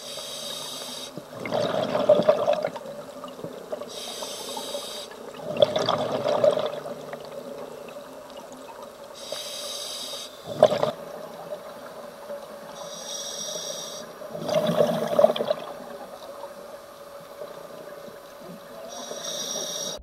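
Scuba diver breathing through a regulator underwater: a high hiss on each inhale, then a burst of bubbling on each exhale, about every four to five seconds, over a faint steady hum.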